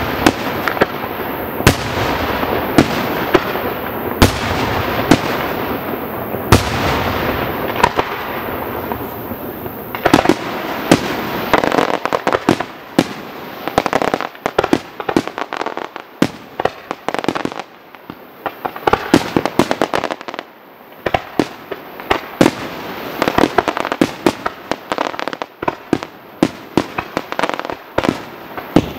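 Aerial fireworks display. For the first ten seconds or so, shells burst with loud bangs about once a second over a thick continuous noise. After that come rapid volleys of sharp bangs in clusters, with short lulls between them.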